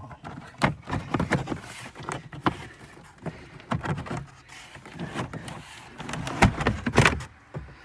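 Boot floor carpet and trim being pulled up and handled: a run of knocks, scrapes and rustles, loudest about six and a half to seven seconds in.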